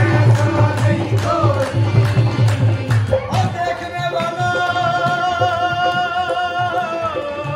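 Live Punjabi Sufi devotional singing in qawwali style: a male lead voice over two harmoniums, holding one long high note from about halfway in until near the end. A drum beat and hand claps keep time, strongest in the first couple of seconds.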